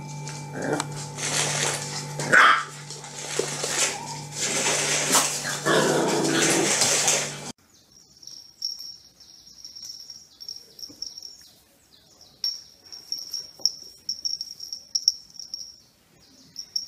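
Shar-pei puppies barking at a toy tarantula, over a steady low hum. About seven and a half seconds in, the sound cuts to a much quieter stretch of faint high-pitched squeaks and light ticks.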